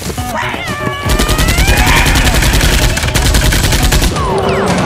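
Rapid machine-gun-style gunfire sound effect, a fast even stream of shots starting about a second in, with a high, rising animal-like cry over it. Near the end the shots stop and several falling whistle-like tones follow.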